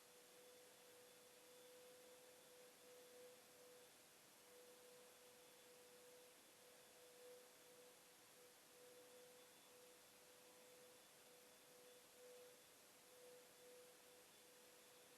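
Near silence: faint hiss with a faint steady tone.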